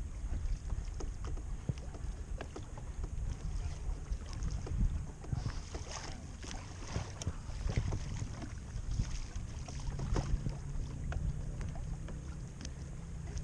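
Water lapping and splashing against a kayak hull, with wind rumbling on the microphone and scattered small knocks. A low steady hum comes in about three quarters of the way through.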